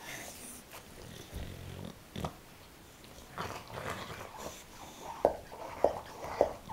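English bulldog gnawing and mouthing a rubber Kong toy, with noisy breathing through the chewing. A short low growl comes about a second and a half in, and three short, sharp, louder sounds come in the last second and a half.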